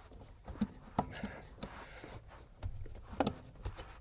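Plastic clicks and knocks of a brake light switch being pushed into its mount on a Mercedes Vito W639's brake pedal bracket, with a brief rustle of handling about a second in.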